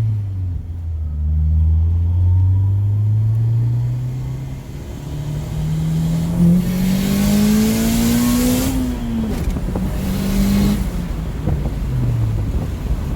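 Honda Integra DC2's four-cylinder engine pulling steadily up through the revs for several seconds, with a rushing hiss at the top. The pitch then falls away at a gear change and runs on at lower revs before falling again near the end.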